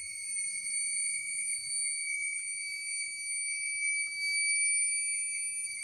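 Forest insects calling with a steady, unbroken high-pitched tone.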